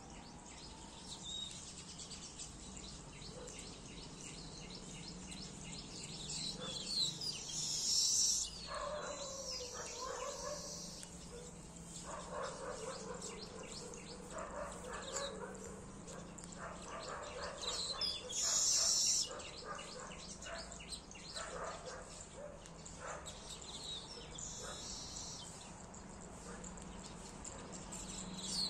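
Birds chirping and calling, with loud bursts of high chirping about 7 seconds in and again about 18 seconds in. Lower animal calls repeat between about 9 and 16 seconds in, over a steady low hum.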